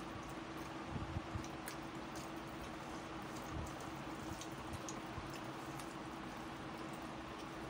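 Eating by hand: fingers mixing and squishing rice and curry on steel plates, with faint scattered clicks and a couple of soft knocks about a second in, over a steady hum.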